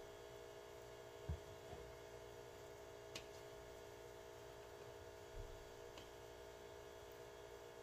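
Near silence: a steady low hum of room tone, with a few faint soft knocks and clicks.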